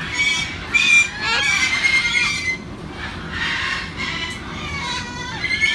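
Cockatoo squawking and squealing: a string of loud, high-pitched calls whose pitch bends and glides.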